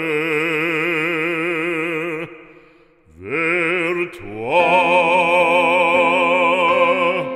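An operatic voice sings the end of a French sacred song, holding a long note with wide vibrato. It breaks off for a breath about three seconds in, then climbs into a second long held note.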